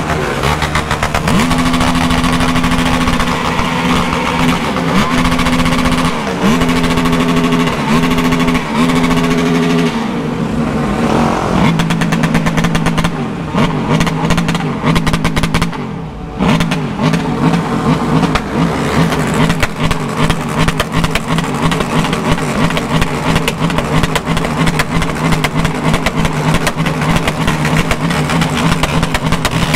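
Many motorcycle engines idling and revving together. A steady engine note dips in pitch several times early on; from about twelve seconds in, a dense run of short sharp sounds carries on over the running engines.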